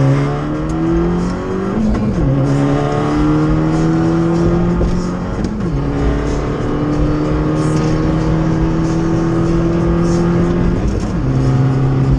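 A 2013 Fiat 500 Abarth's turbocharged 1.4-litre four-cylinder pulls hard under boost through the gears. Its pitch climbs steadily and then drops sharply with an upshift about two seconds in, again about halfway, and once more near the end. The engine breathes through a catless downpipe.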